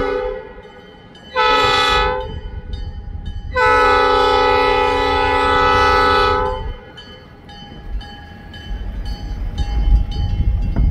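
Diesel locomotive's multi-note air horn sounding at a grade crossing: a blast ending just at the start, a short blast about a second and a half in, then a long blast of about three seconds, the close of the long-long-short-long crossing signal. After it, the locomotive's low engine rumble grows louder as it comes nearer.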